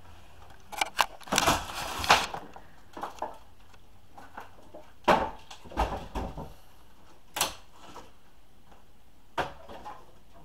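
Old wooden wall boards being pulled and torn loose from the framing: irregular sharp cracks and knocks, with a longer splintering crackle about a second and a half in and another around six seconds.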